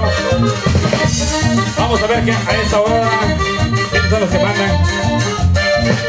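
Live norteño band music: an accordion playing a melody over bass notes on a steady dance beat.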